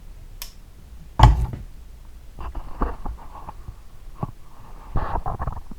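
Handling noises of a lawnmower blade being turned over and inspected: one loud knock about a second in, then scattered light clicks and rustles.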